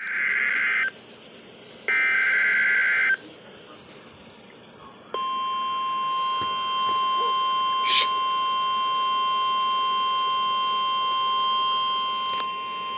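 EAS alert on a Midland WR400 weather radio: two short bursts of warbling SAME digital header tones with radio hiss between them. About five seconds in comes the steady NOAA Weather Radio 1050 Hz warning alarm tone, with a brief click partway through it.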